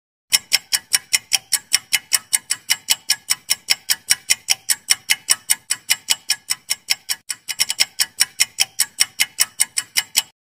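Clock-ticking sound effect marking the seconds of a quiz answer timer: sharp, even ticks at about four a second, with a brief hitch about seven and a half seconds in. It starts and stops abruptly.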